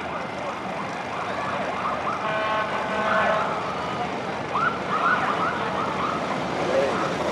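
Police escort sirens sounding short rising and falling whoops at the head of an approaching motorcycle column, over the steady noise of the engines; a held steady siren or horn tone from about two to three and a half seconds in.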